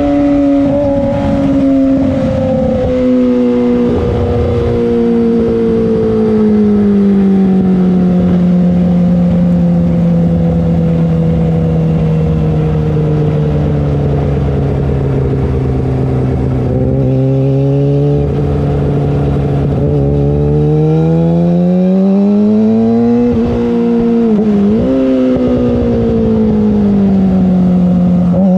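Yamaha YZF-R6 inline-four running through a LeoVince full-system exhaust. The engine note winds slowly down through the first half and holds low. It then revs back up, dips sharply for a moment, falls again and climbs once more near the end.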